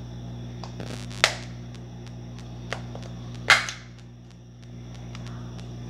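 A large plastic garlic powder container being shaken and tapped as the powder is sprinkled out, giving several sharp clacks. The loudest come a little over a second in and about three and a half seconds in, over a steady low hum.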